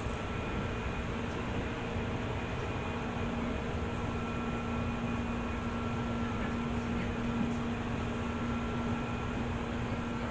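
Interior running sound of a JR 205 series electric train: a steady rumble of wheels on rail with a steady low hum and fainter high whines over it, with no change in pace.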